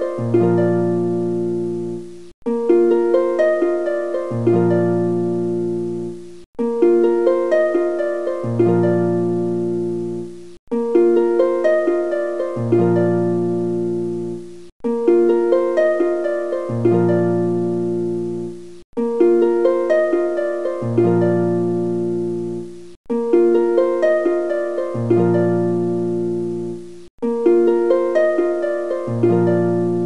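Background music: a short phrase of plucked notes, each note fading away, looping about every four seconds, with each repeat cut off suddenly before the next starts.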